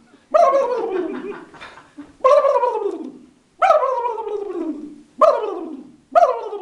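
A man imitating a turkey's gobble with his voice: about five loud calls, each starting high and sliding down in pitch.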